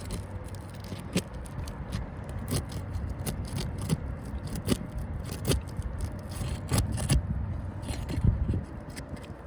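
Sealed-down asphalt roof shingles being pried loose: irregular scrapes and sharp clicks of the tool working under the tabs against the sealant, over a steady low rumble.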